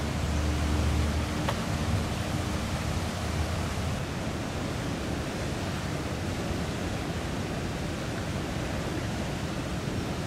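Steady rush of high, fast floodwater. A low engine hum fades out in the first few seconds.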